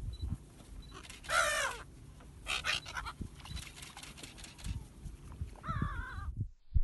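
Gulls calling from a flock flying low over water: harsh calls about a second in, again about a second and a half later, and once more near the end, over low thuds and rumble. The sound cuts off suddenly shortly before the end.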